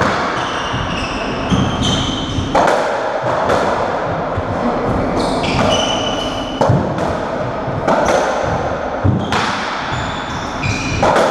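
Doubles racketball rally: the ball cracks off rackets and the court walls in sharp knocks about once a second. Between the knocks, trainers squeak in short high chirps on the wooden court floor.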